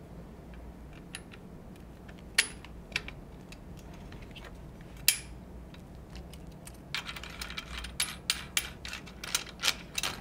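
Metal parts of an Eternal Attacker FX-3 shotgun being handled and fitted back together during reassembly: a few separate sharp clicks, then a quick run of clinks and rattles over the last three seconds.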